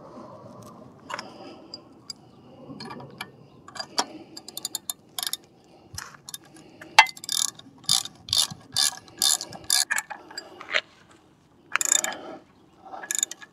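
Ratchet wrench clicking in repeated short runs as it turns and tightens the propeller nut onto an outboard motor's prop shaft.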